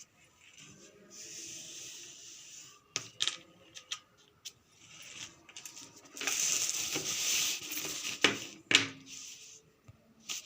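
Paper pattern being handled on a work surface: rustling and scraping, with a few sharp clicks and taps, the longest and loudest rustle from about six to eight seconds in.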